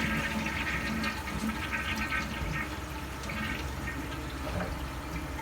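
Toilet flushing: water rushing out of the tank through the newly fitted Korky adjustable flapper and down the bowl, easing off gradually.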